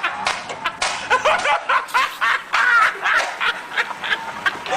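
Rapid, repeated snickering and giggling laughter.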